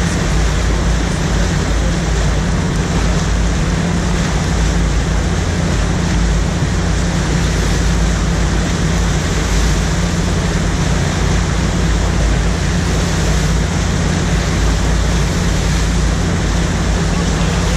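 Water rushing and churning through an artificial standing surf wave right beside the camera, a loud, steady noise with a steady low hum underneath.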